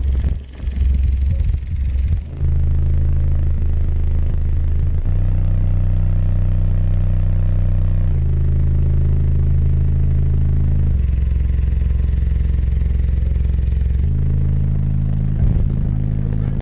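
A wall of twelve American Bass subwoofers in a semi-truck's cab playing bass-heavy music: long, deep bass notes that change pitch every few seconds, with little sound above the bass.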